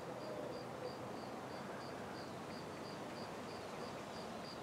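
A cricket chirping faintly and steadily, short high chirps at about two and a half a second, over a low outdoor hiss.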